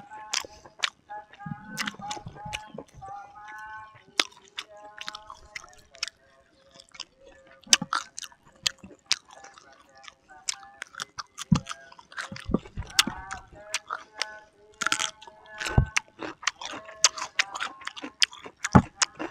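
Close-miked eating sounds: chewing, lip smacks and wet mouth clicks, coming irregularly as grilled chicken, rice and raw greens are eaten by hand.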